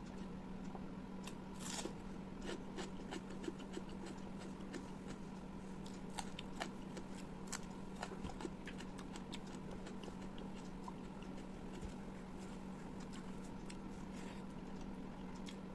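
Close-miked eating: chewing with wet mouth clicks and smacks, busiest in the first half and sparser later, over a steady low hum.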